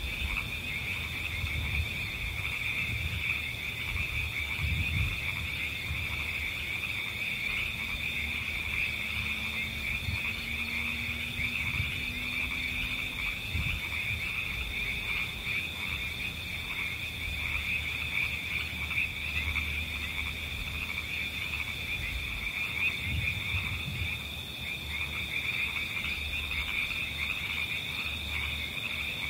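Continuous high-pitched chorus of calling frogs and insects, steady and unbroken. Underneath are faint, irregular low rustles and knocks from paper being handled and folded.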